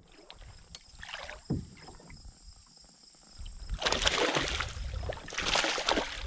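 Handling noise on a plastic fishing kayak: a dull knock about a second and a half in, then a louder stretch of splashing and scuffling against the hull from about four seconds in.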